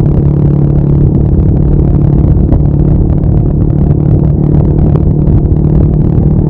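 Honda Monkey 125's single-cylinder four-stroke engine running at a steady cruising speed, with a steady low rush of wind on the microphone.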